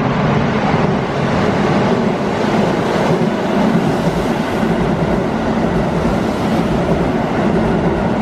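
Keihan 3000 series electric train passing through a station at speed without stopping: a loud, steady rush of wheels running on the rails as the cars go by.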